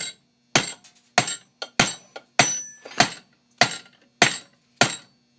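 Hammer blows on a Master Lock No. 22 padlock, about nine sharp metallic strikes in a steady rhythm, each with a brief ring, beating the lock flat.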